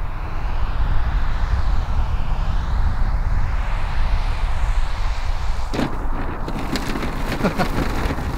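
Twin-engine radio-controlled model warplane on its landing approach, engine and propeller noise rising and falling as it comes in. About six seconds in it touches down with a sharp knock, then rolls on grass with a run of short knocks and rattles from its landing gear.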